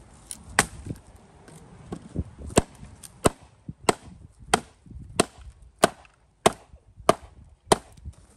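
Hammer striking a wooden board laid across the top stones of a drystone wall, knocking the top stones down tight into the wall. One sharp knock about half a second in, then from about two and a half seconds a steady run of about nine sharp knocks, roughly three every two seconds.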